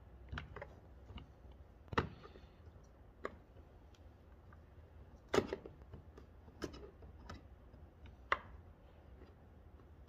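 Scattered light clicks and taps from a screwdriver and fingers working at the plastic underside of a riding mower seat, around the seat-switch opening. There are about eight of them at uneven spacing, the sharpest about 2 seconds in and about halfway through.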